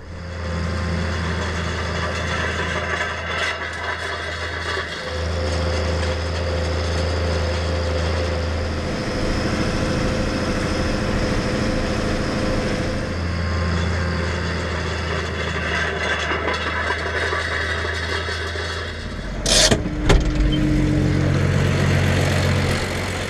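Tractor diesel engine running steadily, pulling a heavy field roller across cultivated soil. A single sharp knock near the end stands out as the loudest sound.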